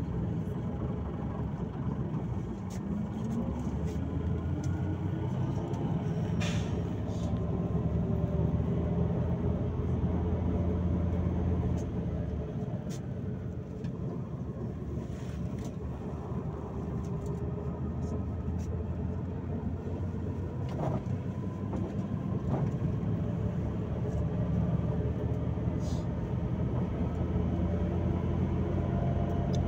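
Volgabus-5270.GH city bus driving, heard from inside the cabin: a heavy engine and drivetrain rumble with a rising whine as it picks up speed in the first few seconds, then steady running with a few sharp rattles and knocks.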